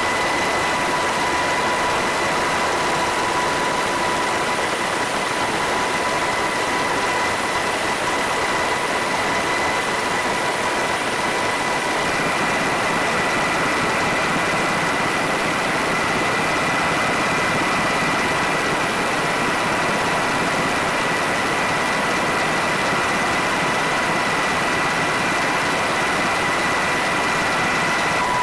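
Steady drone of an aircraft's engines heard from inside the aircraft: an even rushing noise with a steady high whine running through it.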